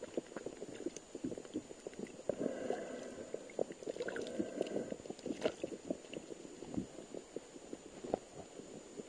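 Underwater noise picked up through a submerged camera: a dense crackle of small clicks over a wash of moving and bubbling water, swelling louder twice in the middle.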